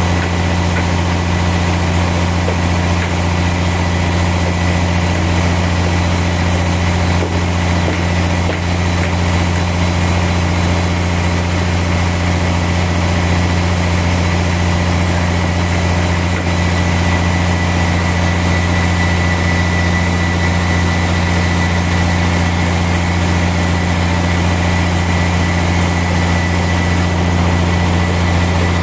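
Sawmill machinery running steadily: a loud, even low hum with a thin high whine over it, and no change in speed or load.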